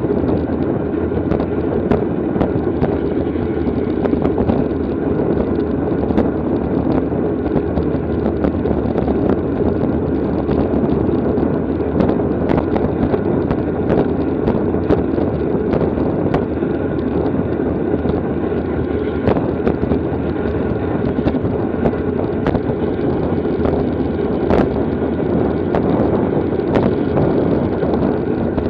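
Steady rush of wind and road noise on a racing bicycle's onboard camera during a criterium, with scattered sharp clicks and knocks throughout.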